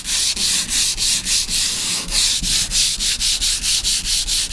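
Hand sanding with 400-grit sandpaper on the primed steel of a car's trunk lid: quick, rhythmic back-and-forth rubbing strokes, feathering the edges of the sprayed primer smooth.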